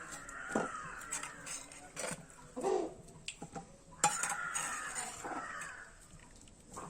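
Metal pots and utensils clinking and knocking, with short irregular clicks throughout. Bird calls sound in the background three times.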